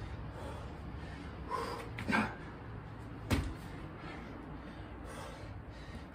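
A man out of breath from burpees, with two hard breaths about two seconds in, and a single sharp thump a little after three seconds.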